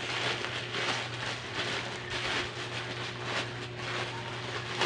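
Plastic courier bag and plastic packaging rustling and crinkling irregularly as hands rummage inside, over a steady low hum.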